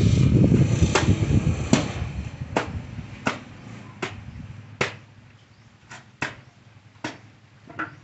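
Wooden laundry paddle (palo-palo) beating wet clothes on a concrete slab: about ten sharp slaps, roughly one every three quarters of a second. A loud low rubbing noise fills the first two seconds before the slaps take over.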